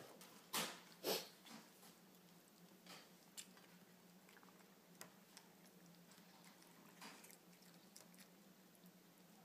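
Cat chewing leftover sautéed green beans: two soft crunches about half a second and a second in, then only faint occasional clicks against near silence.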